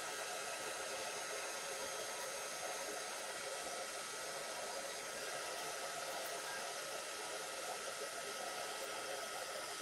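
Embossing heat tool blowing hot air steadily, melting clear embossing powder on a stamped card.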